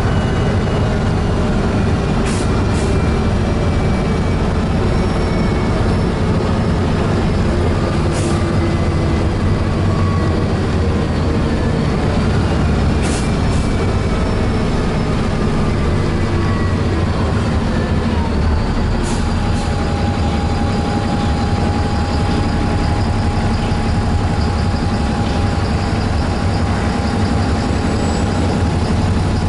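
Ride noise inside a moving road vehicle: a steady low rumble with whining tones that glide up and down in pitch. From about two-thirds in, one whine holds steady, and a few short clicks are heard.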